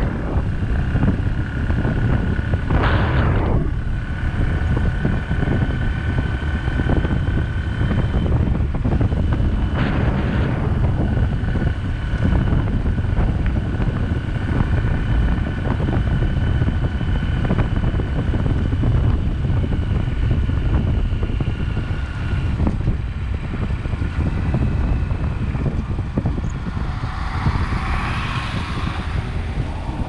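Wind buffeting the microphone over the steady rumble of a vehicle moving along a road, with a faint steady whine, a couple of brief hissing swells, and a louder hiss near the end.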